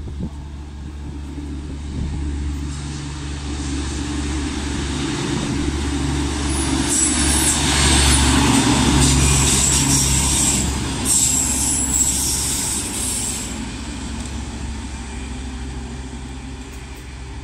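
Irish Rail ballast machine running through the station on its diesel engine, growing louder as it comes past and then fading as it moves away. A high-pitched squeal sounds on and off while it passes closest.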